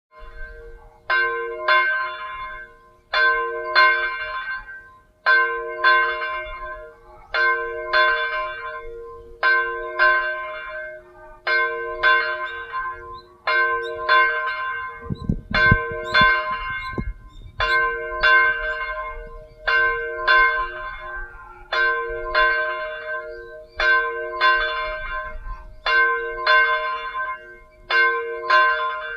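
Catholic church bell ringing steadily. The strokes come in pairs about every two seconds, each ringing on into the next. A brief low rumble comes about halfway through.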